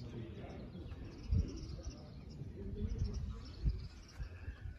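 Outdoor street ambience: faint distant voices and bird chirps over a low rumble, with two dull low thumps, one about a second in and one near the end.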